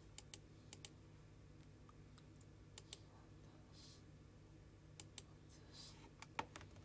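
Computer mouse clicking: four quick pairs of sharp clicks spread across a few seconds, over a faint steady low hum.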